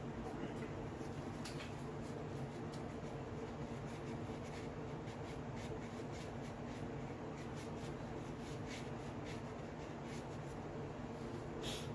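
Faint scattered clicks and light rubbing from hands working assembly lube onto a connecting rod inside a small-block Chevy engine, over a steady background hum.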